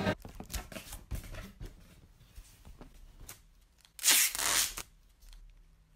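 Small rustles and clicks of something being handled. About four seconds in comes a short, loud rasping noise lasting under a second, the loudest sound.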